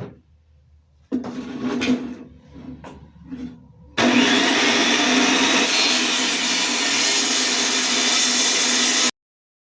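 Electric power saw running and cutting through a length of ash, a loud steady noise that starts suddenly about four seconds in and cuts off abruptly near the end. Before it, scattered knocks of the wood being handled.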